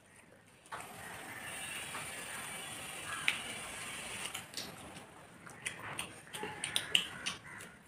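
Hands eating biryani off metal plates: fingers mixing rice on the plates and mouth sounds of chewing, with a run of sharp clicks and smacks in the last few seconds. From about a second in, a steady mechanical whirring noise runs for several seconds and then fades.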